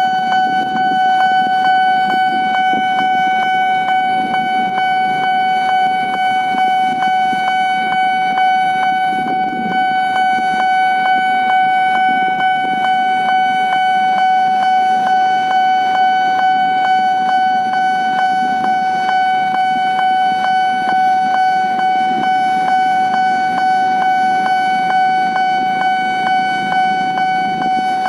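Level-crossing warning alarm sounding continuously as one steady pitched tone with a regular ticking pulse, over a low hum of road traffic.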